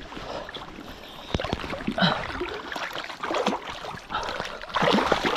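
Water splashing and sloshing in shallows as a hooked bowfin thrashes at the surface, with a louder surge of splashing about five seconds in.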